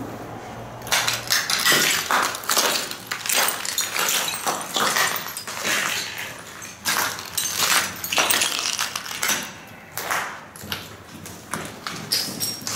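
Footsteps crunching and scraping over a floor strewn with rubble and broken debris, with scattered clinks of loose fragments, starting about a second in.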